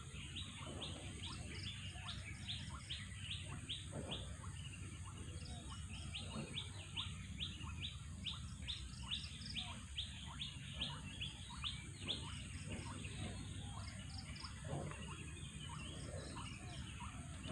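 Birds calling in long runs of short, high, falling chirps, about four or five a second, over a faint steady high whine and a low rumble.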